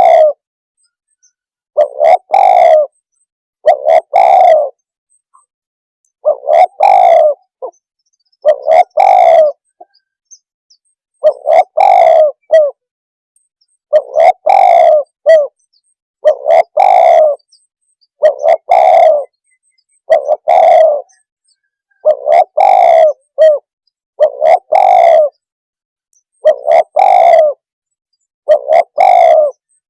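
Spotted dove cooing: a loud, low coo phrase repeated about every two seconds, over and over.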